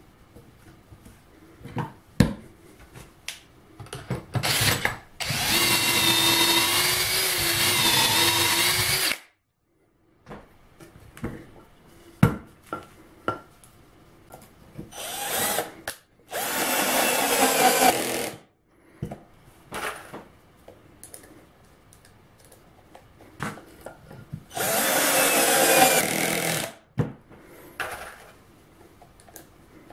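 Cordless drill with a stepped bit boring pocket holes into a plywood strip held in a pocket-hole jig. There are four runs: the first and longest lasts about four seconds, and the others come later, each about one to two seconds long. Between the runs are sharp clicks and knocks from handling the jig and the workpiece.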